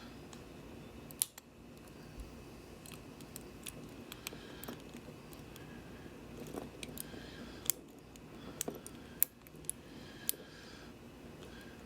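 Lock picking: a hook pick and tension wrench working the pins of a 410 LOTO lockout padlock, giving small scattered clicks, with a few sharper ones about a second in and several more between seven and ten seconds in.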